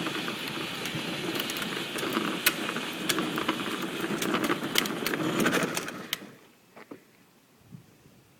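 A children's battery-powered ride-on toy Escalade driving along, its electric motor running and its wheels rolling with scattered clicks and crackle. It cuts off suddenly about six seconds in.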